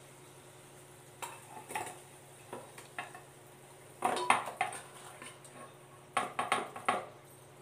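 A spatula scraping and knocking against a non-stick frying pan and a stainless steel bowl as thick curry is scraped out. There are scattered clinks, with the loudest bursts of scraping about four seconds in and again a little after six seconds.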